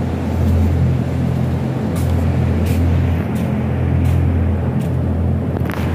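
Steady low hum of greenhouse ventilation fans, with a few faint ticks.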